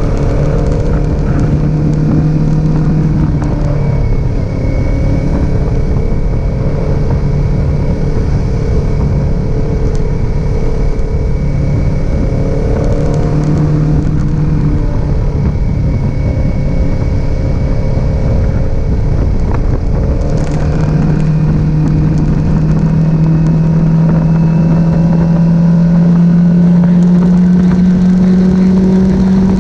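Kawasaki Z400 parallel-twin motorcycle engine running steadily, its note dipping and returning, then climbing slowly in pitch over the last several seconds.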